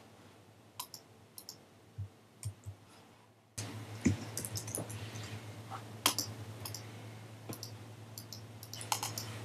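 A series of short, sharp clicks, sparse and faint at first. About three and a half seconds in, a low steady hum comes in underneath and the clicks and ticks grow more frequent.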